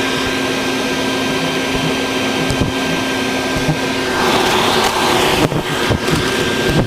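Vacuum cleaner running steadily as it sucks hornets from their nest. About four seconds in, a rougher rushing hiss joins the motor for a second or so, with a few short clicks.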